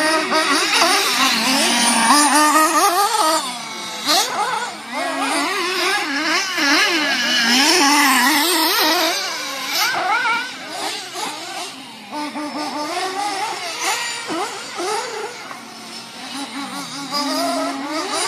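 Motor of a radio-controlled off-road car running on a dirt track, its pitch rising and falling quickly as it accelerates and brakes around the course. It is louder in the first half and fainter from about halfway on.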